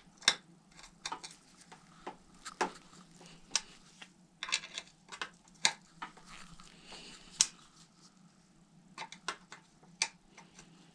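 Irregular small metallic clicks and taps from a 5 mm hex key tool working the crank arm bolts as they are loosened, some coming in quick little clusters.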